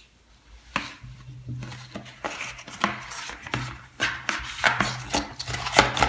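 Cardboard box being handled by hand: a run of knocks, taps and scrapes as the inner tray of a phone box is worked loose and lifted out. It starts about a second in.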